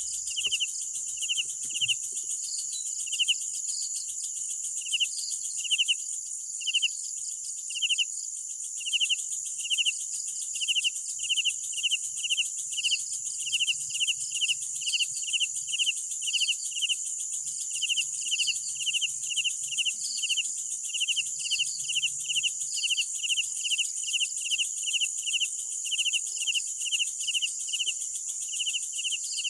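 Night crickets: a steady, high-pitched chorus of insects trilling, over which one nearer cricket chirps in an even beat of about two chirps a second, pausing for a couple of seconds after about six seconds in.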